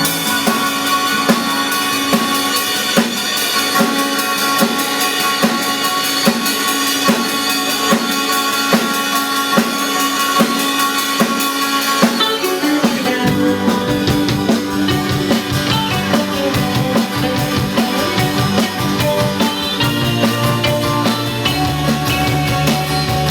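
Indie pop band playing an instrumental passage live, with a steady drum-kit beat and held guitar and keyboard-like notes; a low bass line comes in about halfway through.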